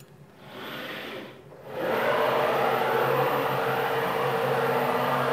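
Avid Benchtop Pro CNC's ClearPath servo-driven axes making a rapid move. First the Z axis raises with a quieter whir, then after a brief pause X and Y traverse together at maximum rapid speed with a loud, steady mechanical whir and whine from the motors and spinning screws. The whir cuts off near the end as the gantry reaches its target.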